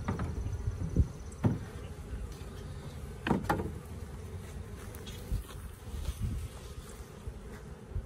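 Honeybees buzzing steadily around a hive. A few sharp knocks come about a second in and again near the middle as a brick is set on the hive lid and a wooden piece is propped against the hive.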